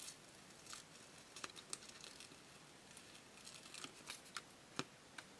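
Adhesive vinyl being peeled by hand off its paper backing, the cut waste lifting away around the shapes: faint, scattered small crackles and ticks.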